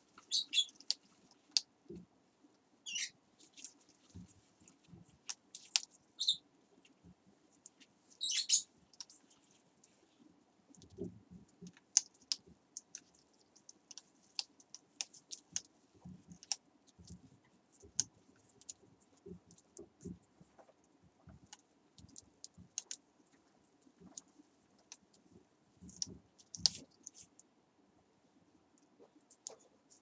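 Parrots clambering on a PVC perch stand: scattered light clicks and taps of beaks and claws, with a few short high squeaks about 3, 6 and 8 seconds in.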